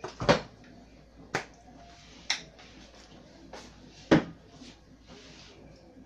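Four sharp knocks and clacks of kitchen things being handled, with fainter clatter between them; the loudest are just after the start and about four seconds in.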